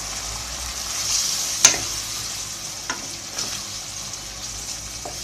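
Onion-and-tomato sauce sizzling in a frying pan as spices are stirred into it with a spatula, with a couple of sharp clicks of the spatula against the pan, one a little under two seconds in and one about three seconds in.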